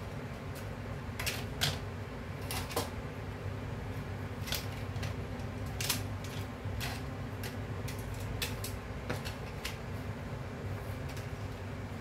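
Metal kitchen tongs clicking and tapping against cooked crab shells and a plate as the crab pieces are picked up and moved, a dozen or so scattered sharp clicks over a steady low hum.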